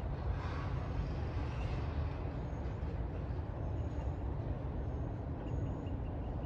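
Disney Skyliner gondola ride, a steady low rumble with hiss over it, brighter for the first second or two. Faint short high chirps repeat about three times a second near the end.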